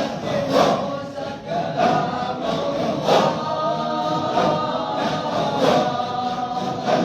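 A group of voices chanting together in unison, typical of a dhikr or nasheed gathering, with a regular beat marked about every second and a quarter.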